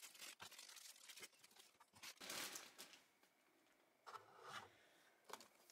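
Faint rustling and crinkling of thin plastic bags as small plastic toy furniture pieces are taken out, with light taps of the pieces set down on a table. The rustling comes in two short louder patches, about two seconds in and about four seconds in.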